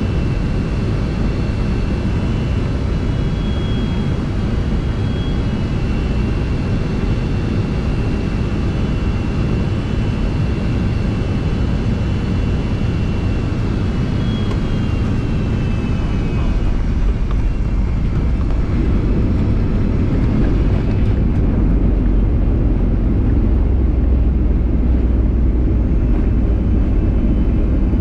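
Airliner cabin noise on final approach: a steady engine and airflow rush with a faint high whine. About two-thirds of the way in a deeper rumble builds and grows louder as the plane touches down and rolls along the runway.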